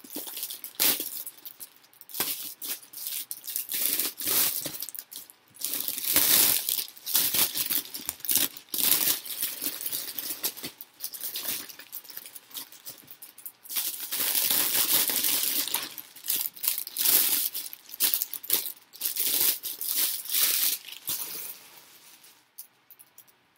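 Clear plastic wrapping crinkling and tearing as it is pulled off by hand, with small plastic bags of building bricks being handled. The rustling comes in repeated bursts and dies away near the end.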